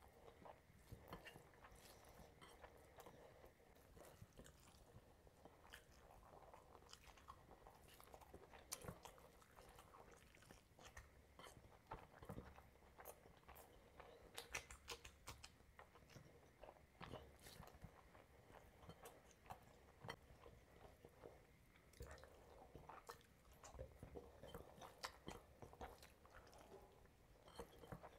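A person chewing and biting food close to the microphone while eating curry and rice by hand: faint, scattered mouth smacks, clicks and crunches with no words.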